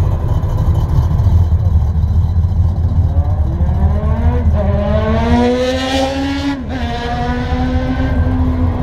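Classic muscle car, a first-generation Pontiac Firebird, pulling away with its engine rumbling. From about halfway the revs climb, then drop sharply about two-thirds through, as at a gear change or a lift off the throttle, and the engine holds a steady note.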